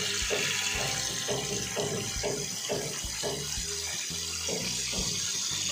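Tap water pouring in a steady stream into a stainless steel pot that already holds water and whole sweet potatoes, filling it for boiling.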